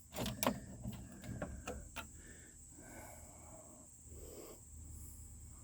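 Several light clicks and taps of small hard computer parts being handled, a quick run of them in the first two seconds, then faint rustling.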